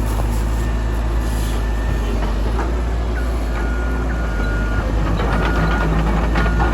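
Heavy construction machinery engine running steadily with a low rumble. From about three seconds in, a reversing alarm beeps repeatedly.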